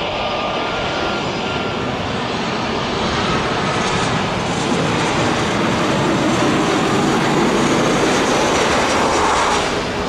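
Jet engines of a Boeing 737-800 on landing approach, a steady rushing roar that grows louder as the airliner comes down close to the runway, then drops off suddenly near the end.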